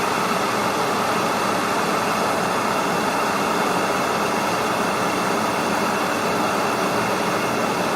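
Kettle heating water: a steady rushing, rumbling hiss that holds even throughout, with no whistle.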